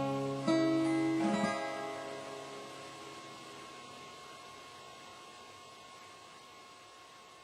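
Acoustic guitar playing the closing chords of a song: a strum about half a second in and another just over a second in, then the final chord rings out and slowly fades away.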